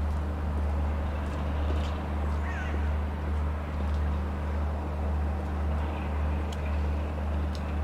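Class 33 diesel locomotive's Sulzer eight-cylinder engine idling, a steady low hum.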